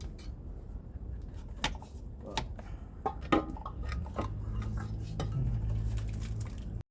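Metal hand tools clinking and tapping against metal parts: a string of sharp, irregular clicks, the loudest about a third of the way in. A low steady hum comes in about halfway through.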